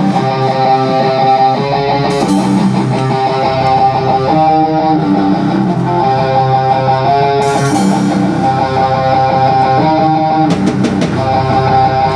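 Live band playing a rock song: electric guitar chords that change every second or two, over a drum kit.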